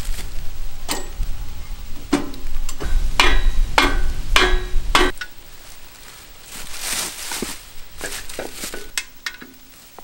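Steel sawmill parts clanking against each other as they are handled and fitted onto the frame: about six sharp metallic knocks with a ringing tone in the first five seconds, then softer scattered knocks and rustles.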